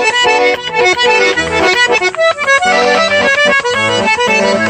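A small piano accordion playing a quick tune: short melody notes changing several times a second over lower held chord and bass notes.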